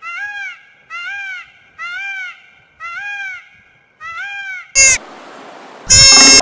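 A bird repeating a short, clear call that rises and falls in pitch, about once a second, six times. Near the end come two much louder calls, a short one and then a longer one.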